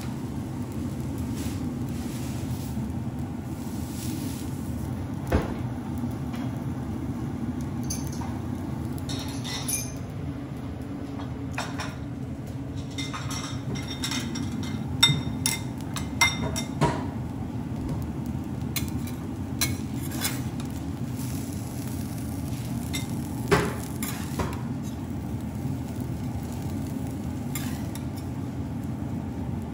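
Metal spatulas scraping and clinking on a flat iron teppan griddle, with a few sharp metal clinks, most of them around the middle, over a steady low background hum.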